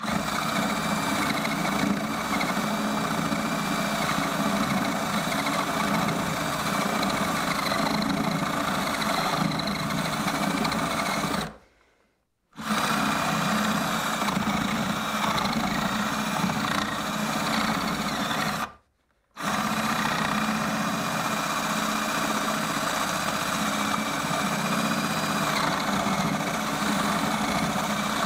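Power drill running steadily under load as a 1¼-inch flat wood bit bores through a timber floor joist, with a steady high whine. The drill stops twice, about a third and about two-thirds of the way through, fading down briefly before starting up again.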